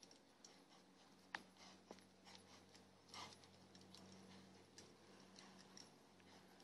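Faint, irregular hoofbeats of an Arabian/Quarter Horse cross trotting on arena dirt, over a low steady hum.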